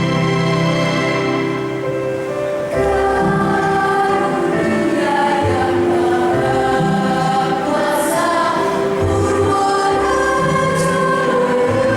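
Junior high school choir singing, holding long notes that change every few seconds.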